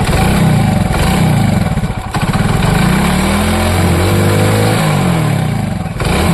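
Hero Splendor single-cylinder four-stroke motorcycle engine revved up and down several times, with a longer rev in the middle. The timing chain has been refitted and its tensioner tightened, so the earlier 'khit-khit' chain noise is gone and it runs smooth.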